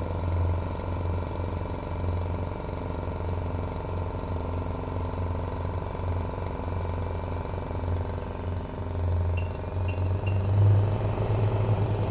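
A small piston air compressor, of the kind supplied with dental ceramic furnaces, running steadily close up, together with the Silence CAM 200 ko-max extraction unit running at its fourth speed. It makes a strong low hum with several steady tones above it, swelling briefly near the end.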